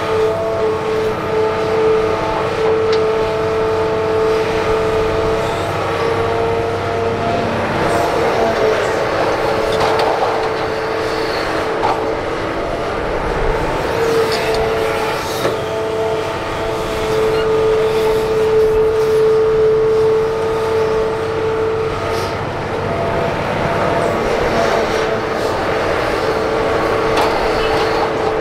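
Hitachi Zaxis 350H excavator working while it digs and loads dirt. Its engine runs steadily with a constant whine that dips now and then, and there are a few scattered knocks.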